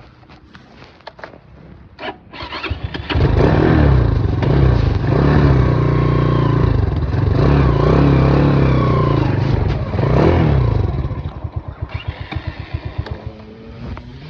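Small off-road vehicle engine running hard after a stall in deep mud water, its pitch rising and falling with the throttle for several seconds. It then drops back to a slower, pulsing idle near the end.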